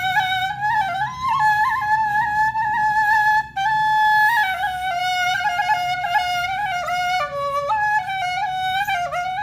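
Background music: a single flute playing a slow melody of held notes with small ornaments, with a brief break between phrases about three and a half seconds in.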